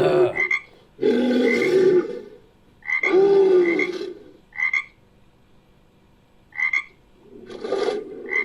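Croaking frog calls used as a creature sound effect. Several calls about a second long come with short, sharp chirps between them, and there is a pause of about two seconds in the middle before another call starts near the end.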